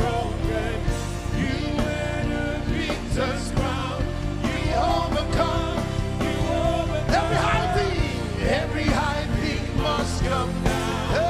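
Gospel worship music: a band playing steadily with voices singing over it.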